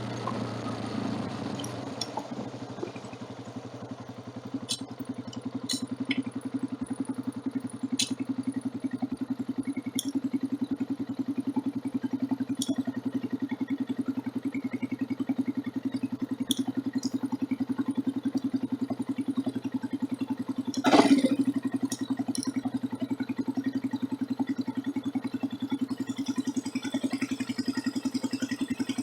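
Motorcycle engine running steadily, picked up by a phone in a mount on the bike, a little softer for the first few seconds. Scattered sharp clicks and rattles throughout, with one louder knock about two-thirds of the way through.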